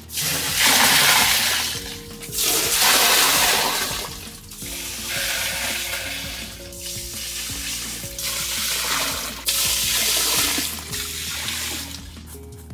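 Water pouring and splashing into a small tiled pool, coming in several surges a couple of seconds each, the first two loudest, with background music underneath.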